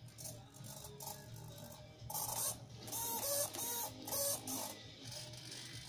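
Hobby servos of a 3D-printed FPV camera pan-tilt mount whirring in several short runs as they pan and tilt the camera, with a gear whine that steps up and down in pitch, mostly between about two and five seconds in.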